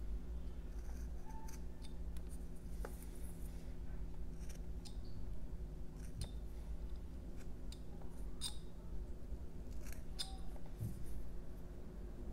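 Carving knife making small detail cuts in a block of jelutong wood: a scatter of short, crisp snicks at irregular intervals, over a steady low hum.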